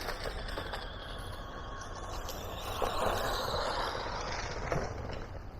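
Small electric RC car driving over rough backyard ground: a quiet motor and tyres rolling over grass and twigs, swelling louder for a second or so in the middle, with a couple of light knocks as it bounces.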